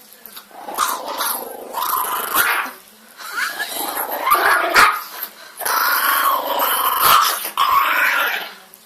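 A dog growling in three long bouts.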